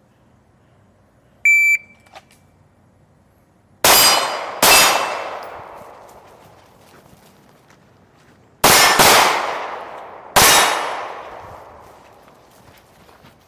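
Shot timer gives one short beep, then pistol shots follow: two about a second apart, a pause of about four seconds, two in quick succession, and one more a second and a half later. Each shot trails off slowly.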